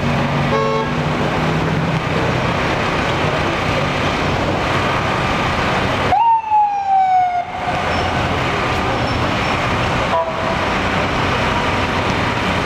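Steady city street traffic noise with an ambulance siren giving one loud falling wail about six seconds in, then a short falling chirp about ten seconds in.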